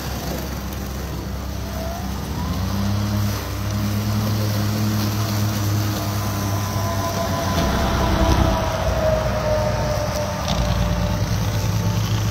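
Battery-powered walk-behind lawn mowers running as they cut heavy, damp roadside grass: a steady electric motor hum under the noise of the spinning blades. Highway traffic passes alongside, and a vehicle going by about eight seconds in is the loudest moment.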